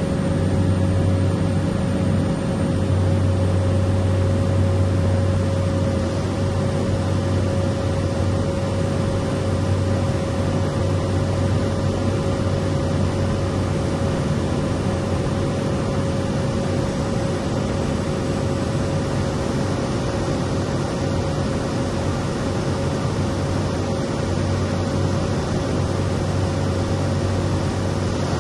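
Cessna 208 Caravan's PT6A turboprop engine and propeller heard from inside the cockpit: a loud, steady drone with a constant whine over the rush of air.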